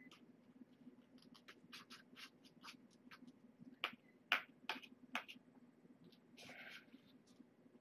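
A spoon clicking and scraping against a small bowl of kitten food: about a dozen light clicks, the loudest about four seconds in, followed by a short rustle, over a faint steady hum.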